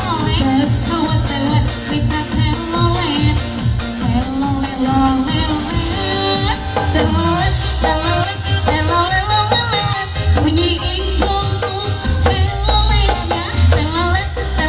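Song music with a steady beat, percussion and bass under a melody line that slides and bends in pitch.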